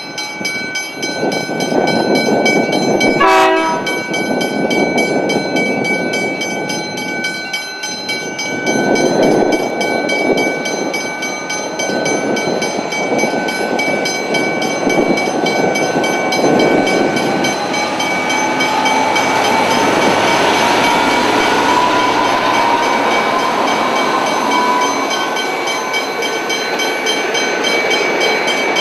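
V/Line N-class locomotive's EMD 12-cylinder two-stroke diesel running as it hauls passenger carriages past and over a level crossing, with wheel and rail noise. The crossing's warning bells ring steadily throughout.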